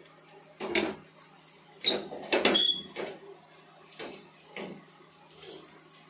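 A series of short clattering and scraping noises, about seven in all and loudest between about two and three seconds in, over a low steady hum.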